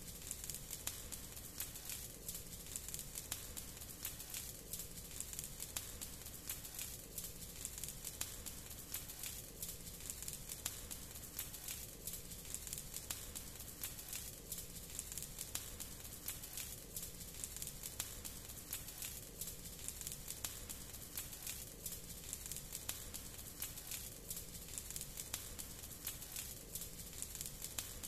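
Burning rubbish fire: a steady stream of small crackles and pops over a low, rumbling hiss of flame.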